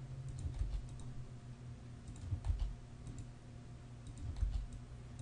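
Computer keyboard keystrokes (Ctrl+R presses) and mouse clicks: scattered light clicks, with a few dull low thuds over a faint steady hum.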